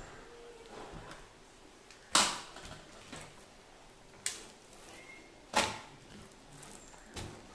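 Stainless steel plate knocking on a tabletop as it is handled: four sharp knocks spread over about five seconds, the first the loudest.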